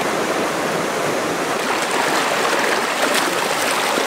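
Shallow rocky stream flowing steadily over stones, a continuous rushing of water.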